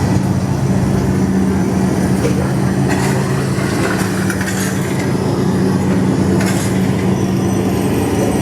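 A loud, steady, low droning hum at one constant pitch, with a few brief noisy bursts in the middle.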